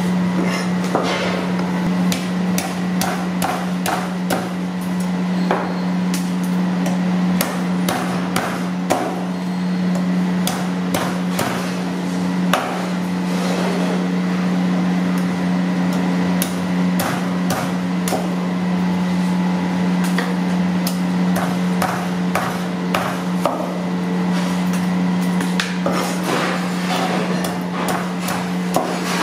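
A meat cleaver chopping blocks of frozen fish on a wooden board: repeated sharp, irregular knocks as the blade strikes through the ice-hard fish into the wood, over a steady low hum.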